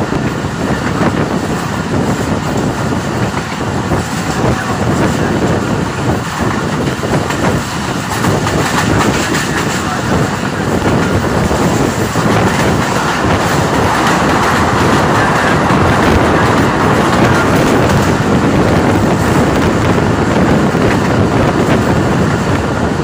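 Passenger train coach running along the line, heard at its open window: steady rumble of wheels on rails, growing somewhat louder about halfway through.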